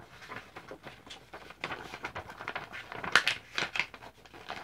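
Sheet of paper being handled and folded into a paper airplane: irregular rustling and crinkling as it is creased, loudest about three seconds in.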